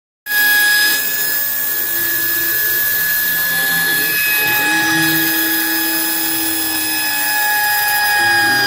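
Homemade CNC machine running: a steady motor whine held at a few fixed pitches, with a lower tone that shifts about partway through as the axes move. The sound cuts out for a moment at the very start.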